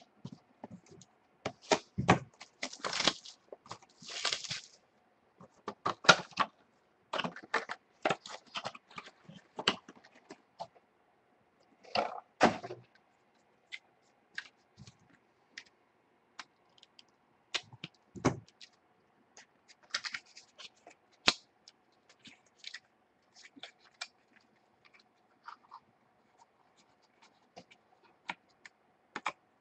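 A sealed box of trading cards being handled and opened by hand: crinkling of plastic wrapping and rustling, scraping cardboard, in irregular crackling bursts with scattered clicks, over a faint steady hum.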